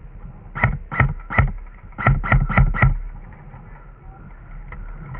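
Airsoft gun firing seven single shots: three spaced shots, then a quicker run of four about a second later.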